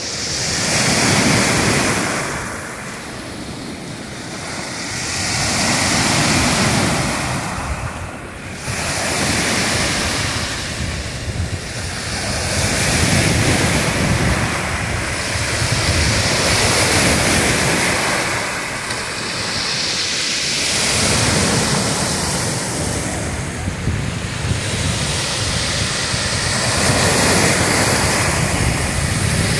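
Black Sea surf breaking and washing up a pebble beach, swelling and falling back every few seconds, with wind rumbling on the microphone.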